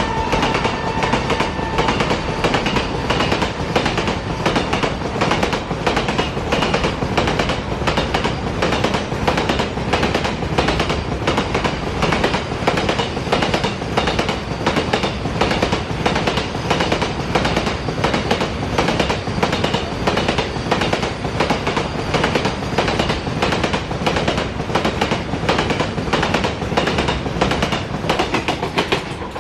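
Double-stack container freight train of BLC wagons passing, its wheels clattering over the rail joints in a fast, even rhythm over a steady rolling rumble.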